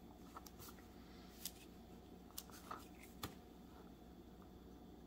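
Near silence with a handful of faint, short clicks and taps as a wooden ruler and a strip of sandpaper are shifted about on a cutting mat.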